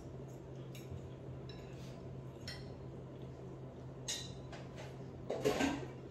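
Dishes and cutlery clinking off to one side: a few faint clinks, then a louder clatter about five seconds in, over a steady low hum.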